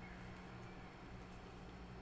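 Faint steady low hum of room tone, with a few faint soft ticks.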